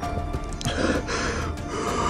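A man breathing hard and gasping, several rushes of breath in and out after a hard run, over background music.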